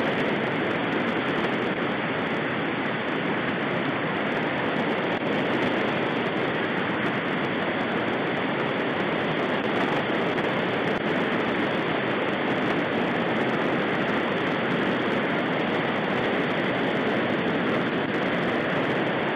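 Shallow river rapids rushing over rocks, a steady, unbroken noise of fast water.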